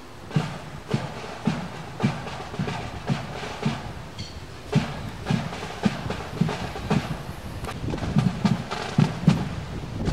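Marching drum cadence: a bass drum beats the step about twice a second under sharper drum strokes.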